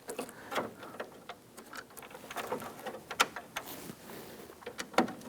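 Irregular small clicks and taps of plastic and metal parts being handled while a metal linkage rod is fitted to an interior door handle inside a Jeep Wrangler door. The sharpest clicks come about three seconds in and near the end.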